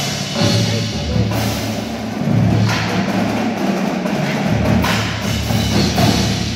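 High school indoor drumline playing: marching snares, tenors and bass drums with a front ensemble of marimbas and vibraphones, over sustained low bass notes that shift every second or so.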